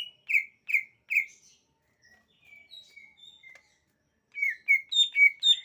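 Green leafbird (cucak ijo) singing: a run of loud, clear repeated notes, about three a second, gives way in the middle to softer, quieter notes and a short pause, then the loud run starts again near the end.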